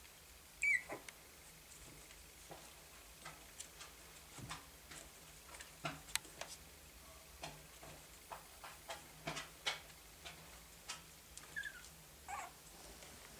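Three-week-old papillon puppies squeaking and shuffling. A short high squeak about a second in is the loudest sound, with fainter squeaks near the end. Scattered soft clicks and scratches come as they move about on the blanket.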